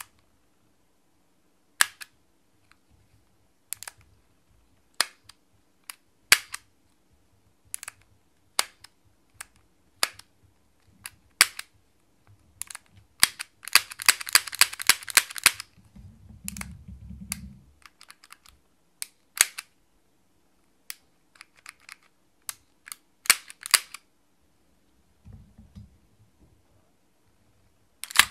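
Cybergun/VFC FNX-45 Tactical gas blowback airsoft pistol being worked by hand: sharp single clicks of its action, about one every one to two seconds, with a quick run of about a dozen clicks in the middle. Short low handling rumbles follow the fast run and come again near the end.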